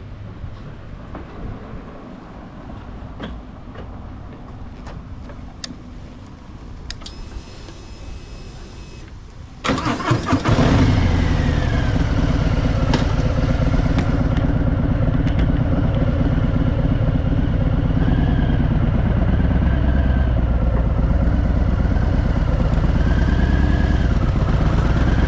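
Harley-Davidson Fat Boy's air-cooled V-twin starting about ten seconds in, catching at once and then running at idle with a few small rises in pitch.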